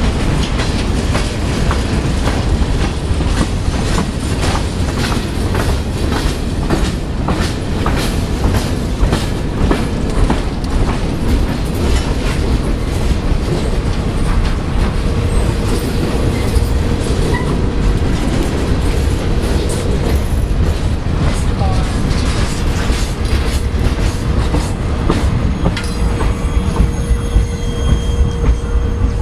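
Freight cars of a Norfolk Southern manifest train rolling past at close range, their wheels clicking rhythmically over rail joints in a steady clickety-clack. A thin steady wheel squeal joins about halfway. The clatter thins near the end as the last car goes by.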